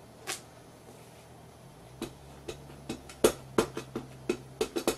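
A run of light taps and clicks from a clear polymer stamp being handled on its block and dabbed against an ink pad, with one louder knock about three seconds in. A faint low hum sits underneath.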